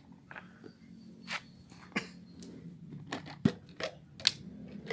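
Irregular small clicks, taps and light scrapes of medicine bottles and a syringe being handled while medicine is mixed, with one sharper click about three and a half seconds in.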